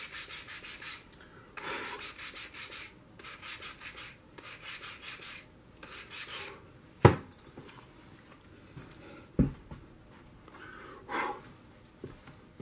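Sandpaper rubbed by hand over balsa wood parts in quick back-and-forth strokes, several strokes a second in short runs, taking off leftover paper stuck with 3M77 spray adhesive. A sharp knock about seven seconds in and a duller thump a couple of seconds later.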